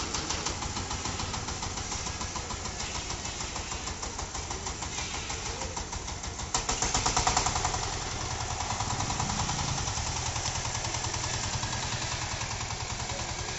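Single-cylinder diesel engine of a power tiller running with a steady rapid chugging beat, swelling louder for a second or two about six and a half seconds in.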